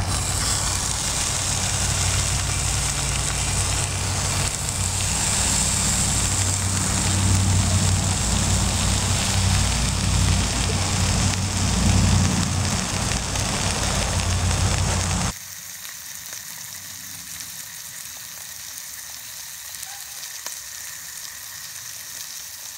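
Bacon strips sizzling in a titanium plate used as a frying pan over an alcohol stove, a steady frying hiss with a low rumble under it. About fifteen seconds in the sound drops suddenly to a quieter, closer sizzle.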